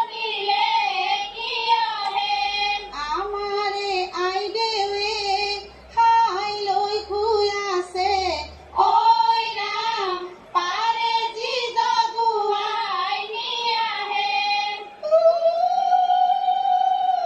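A woman singing a biya geet, a traditional Assamese wedding song, in a high melodic line broken by short breaths between phrases, heard through a television's speaker.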